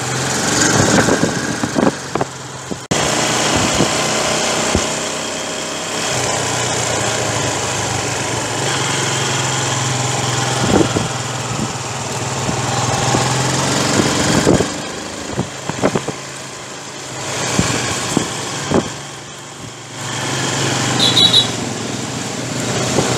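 Motorbike engine running under way, with steady road and wind noise; the engine eases off twice in the second half.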